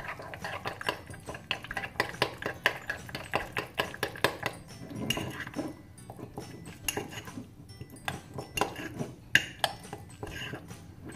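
A small spoon stirring seasoned persillade in a white ceramic ramekin, clinking and scraping against the sides in quick, irregular taps, several a second.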